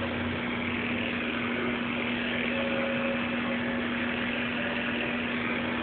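Electric hair clippers running with a steady hum.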